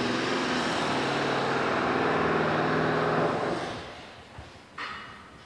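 A motor vehicle's engine running steadily, then fading away about three and a half seconds in, followed near the end by a brief sharp noise.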